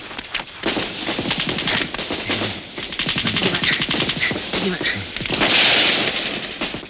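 Rapid automatic gunfire in a film battle scene: dense strings of shots without a break. A louder burst of noise comes about five and a half seconds in.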